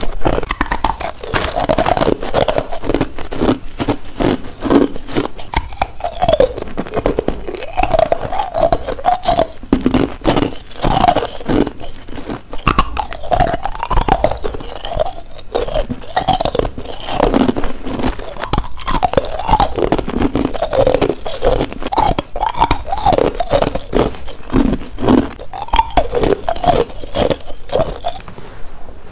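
Close-miked biting and chewing of hard frozen ice: a continuous run of dense, crisp crunches mixed with short squeaks as the dry ice is crushed between the teeth.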